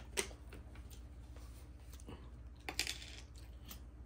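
A plastic water bottle being handled: a sharp knock just after the start and a brief cluster of crackling clicks about three seconds in.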